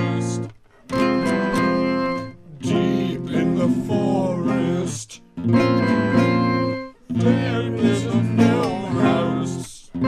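Background music led by acoustic guitar, playing in phrases of about two seconds, each separated by a brief pause.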